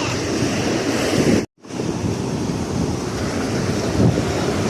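Sea surf washing up the beach, with wind buffeting the microphone. The sound cuts out completely for a moment about a second and a half in.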